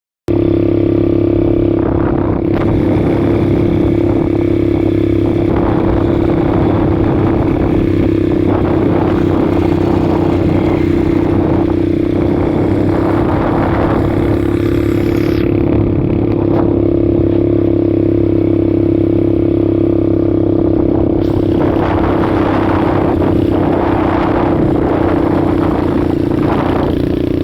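ATV engine running at a steady speed, holding one even pitch throughout, with repeated rushes of noise over it.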